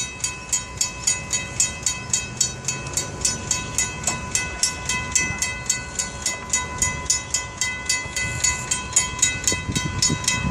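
Railroad grade-crossing warning bell on the signal mast ringing steadily, about three strikes a second, as the crossing signals are worked on during maintenance.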